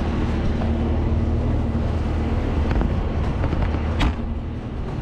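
Engine running steadily with a low hum, with a few light clicks and one sharp click or knock about four seconds in.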